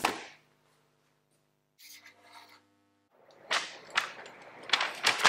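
A sharp swish as a paper instruction booklet is whisked away. From about three seconds in, a dense run of paper rustling broken by sharp clicks as the booklet is handled and its pages flipped quickly.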